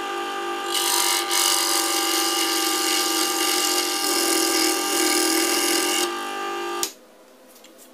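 Small electric scroll saw running and cutting a thin piece of wood. The sound grows louder about a second in and drops back about six seconds in, then the saw stops abruptly near seven seconds.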